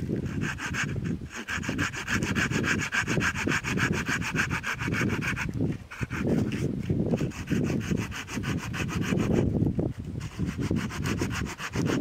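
Hand saw cutting through wood with steady, rhythmic strokes.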